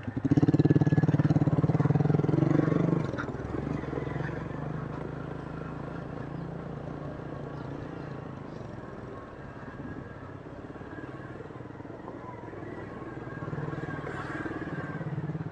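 Small motorcycle engine running while riding along a narrow concrete path, loudest for the first three seconds, then running lower and steadier, picking up again near the end.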